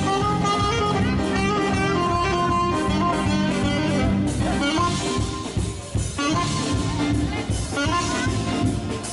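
A band playing music, with several instruments holding notes over a steady low accompaniment, dipping briefly about six seconds in.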